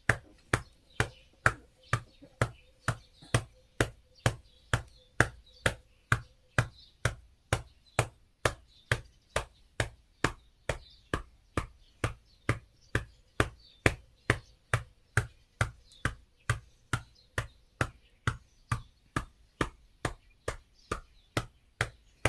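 A hand slapping steadily on an elderly person's back, about two and a half slaps a second. This is back percussion (pai bei) for a cough, done to loosen phlegm that cannot be coughed up.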